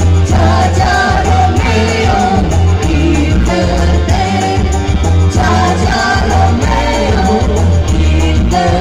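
Live band music played loud through a PA, with singers singing into microphones over a keyboard backing and heavy bass.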